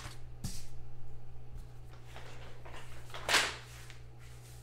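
Paper sheets being handled and slid off a tabletop, with a light knock about half a second in and one short, louder swish a little over three seconds in, over a steady low electrical hum.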